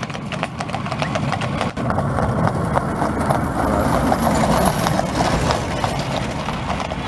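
Hooves of two feathered horses clip-clopping on a tarmac road as they pull a horse-drawn bow-top wagon close past, with the rumble of its wooden spoked wheels on the road. The sound swells to its loudest about halfway through, as the horses and wagon are nearest.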